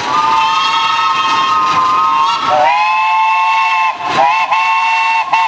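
Narrow-gauge steam locomotive's whistle sounding a long, chord-like blast. About halfway through it drops to a lower pitch, then near the end it is broken into a few short toots.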